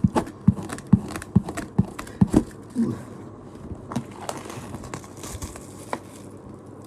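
A large boxed merchandise set being handled: a quick run of sharp taps and knocks for about three seconds, then quieter rustling with a few scattered clicks.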